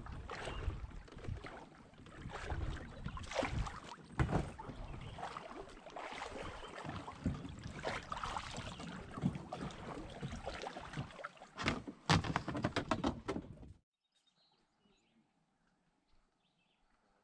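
A plastic fishing kayak knocking and scraping against a wooden landing ramp in shallow water, with gear clunking aboard and a cluster of sharp knocks about twelve seconds in. The sound then cuts off abruptly to near silence.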